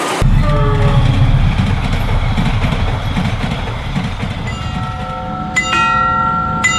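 A train passing close by with a heavy low rumble. About four and a half seconds in, a steady sound of several stacked tones starts and grows stronger a second later.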